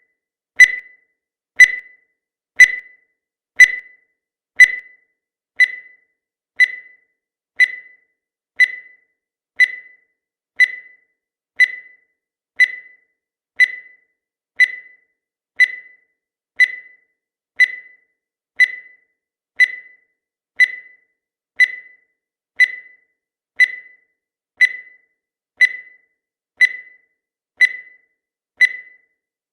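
Countdown timer sound effect: a short, high electronic beep once a second, each with a sharp start and quick fade, marking off the seconds.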